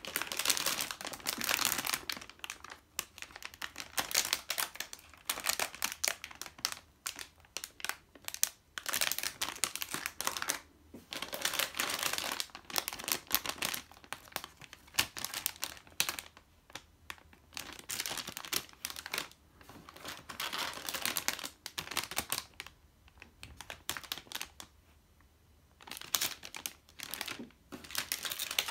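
Clear plastic bags around model-kit runners crinkling in irregular bursts as they are handled, with short quieter pauses between.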